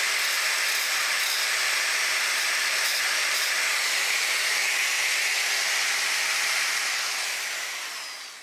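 Electric angle grinder with a thin cut-off disc running steadily at full speed, a loud, even whirr with no rhythm. Near the end it fades and its pitch falls as the disc winds down.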